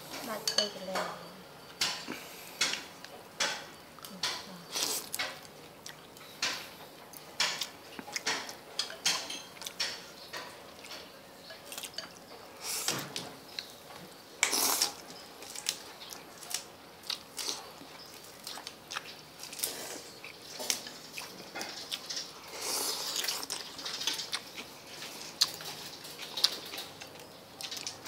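Chopsticks and tableware clinking and tapping against ceramic noodle bowls during a meal: irregular sharp clicks and knocks, several a second at times.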